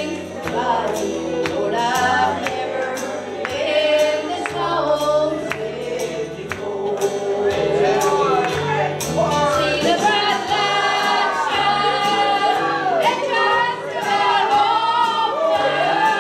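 A woman singing a gospel song into a handheld microphone over a backing accompaniment with a steady beat and a stepping bass line.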